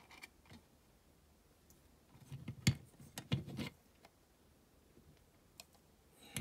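A few small clicks and light knocks of objects being handled on a workbench, bunched about two to four seconds in with one sharper click among them and a single click near the end, over low room quiet.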